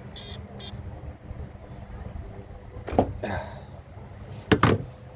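Three sharp knocks over a low, steady rumble: one about three seconds in and a quick pair near the end, the last pair the loudest.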